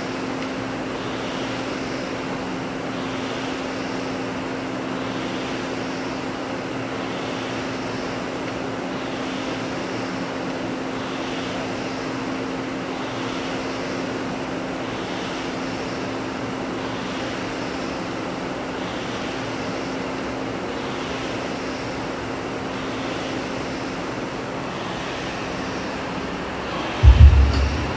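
Air-resistance rowing machine in use, its flywheel fan whooshing in a rise and fall about once every two seconds, one swell per stroke, over a steady hum. A few loud low thumps near the end.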